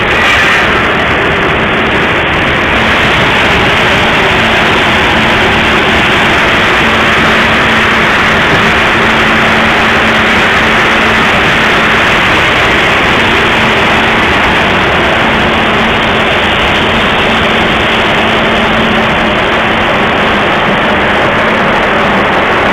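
Corn-drying plant machinery running: a loud, steady rushing noise with a constant low hum underneath.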